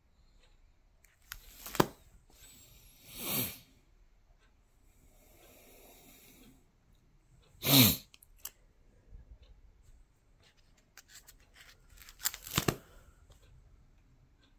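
Plastic sleeve pages of a DVD binder being turned, about four short rustling swishes; the loudest comes about eight seconds in.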